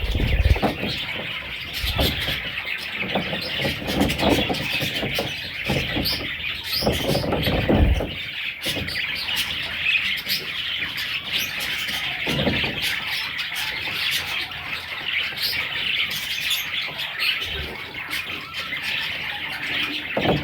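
Budgerigars chirping and warbling in continuous, dense chatter. Scattered low knocks and bumps sound through it, mostly in the first eight seconds.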